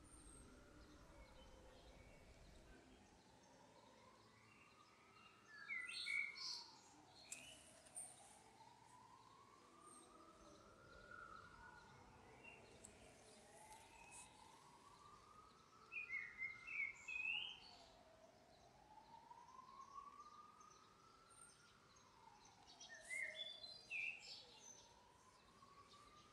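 Faint distant siren wailing slowly up and down, repeating every four to five seconds, with birds chirping in short bursts three times.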